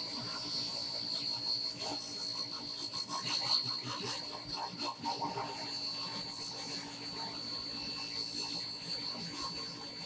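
Long wooden board rubbing and scraping as it is worked along a Craftsman table saw's table and rip fence, with a steady faint high whine.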